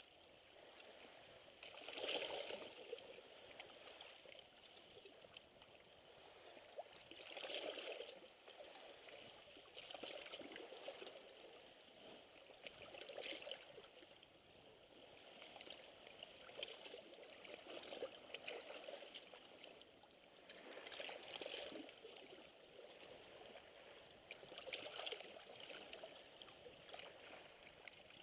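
Small sea waves faintly lapping and splashing against shoreline rocks, swelling in soft surges every few seconds.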